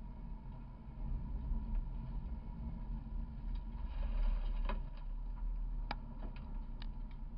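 Road and wind noise of a car driving, heard through a camera mounted beside the front wheel on its Michelin Primacy MXM4 tyre: a steady low rumble. A few sharp clicks come in the last few seconds.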